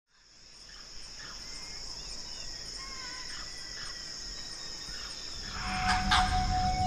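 A steady, high-pitched insect drone fades in, with a few faint, short gliding chirps. About five and a half seconds in, music with a low bass and a held tone comes in over it.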